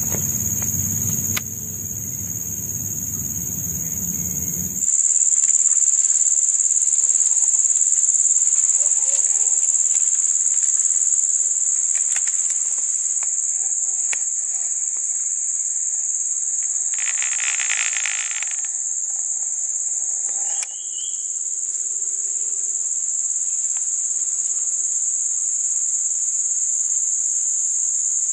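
Steady high-pitched drone of an insect chorus in forest. For the first five seconds a low rumbling noise sits under it, cutting off abruptly, and a brief louder burst of noise comes about 17 seconds in.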